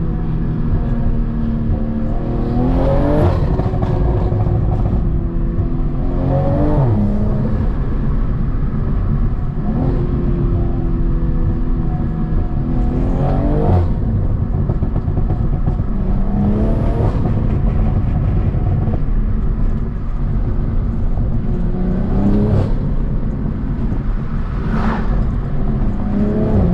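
BMW M340i's turbocharged B58 inline-six, fitted with a CTS Turbo intake, pulling hard through the gears several times: the engine note climbs through each gear and drops at each upshift. Short high-pitched turbo whooshes are heard at the shifts.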